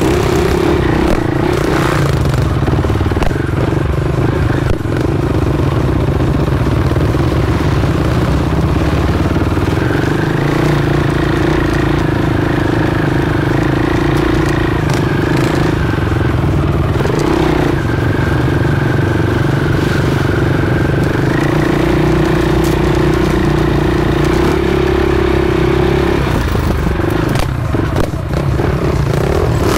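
Enduro dirt bike engine running under way on a rough trail, held at steady revs for long stretches, rising in pitch about a third of the way in and again past two thirds, dropping back in between. Clattering and scraping from the rough ground run underneath.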